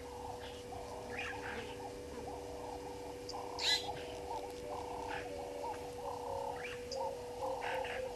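A chorus of frogs calling together in a dense, continuous warble, over a steady low hum. Shorter, higher calls come every second or so, with one louder, sharper call about three and a half seconds in.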